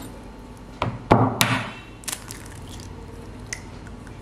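An egg being cracked open into a plastic bowl: three sharp knocks of the shell close together about a second in, then a few small clicks as the shell is pulled apart.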